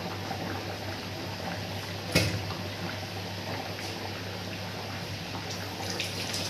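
Chicken curry simmering in a black iron kadai, a steady bubbling over a constant low hum, with one sharp knock about two seconds in.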